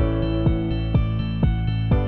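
Background music: a soft instrumental track with a steady beat.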